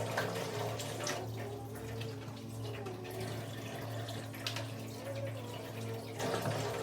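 Water from a kitchen tap running into a sink, with a few short clinks.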